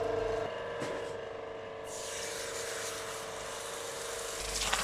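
Electric forge blower humming steadily, with a hiss coming in about two seconds in and carrying on.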